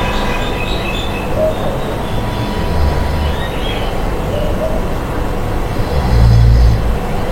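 Snoring: low rumbling snores on the in-breath, one about two and a half seconds in and a longer, louder one about six seconds in, with a faint steady hum underneath.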